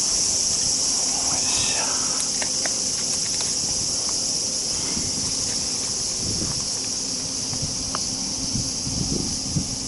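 A steady, high-pitched chorus of summer insects, with faint rustling and light knocks in the grass in the second half.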